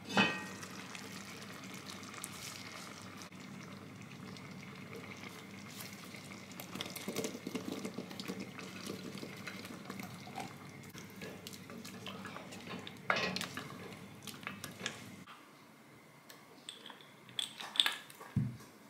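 An enamelled casserole pot's lid knocking as it is lifted, then a sausage casserole simmering and sizzling on the hob while butter beans are tipped in and stirred, with clinks and knocks of the spoon against the pot. Near the end, a few light knocks.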